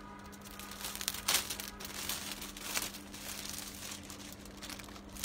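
Clear plastic garment packaging crinkling as a cotton dress is pulled out of it. It comes in irregular bursts, loudest about a second in, over a steady low hum.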